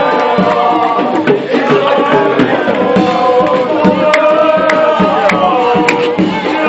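Music with a steady hand-drum beat under a sliding melody line.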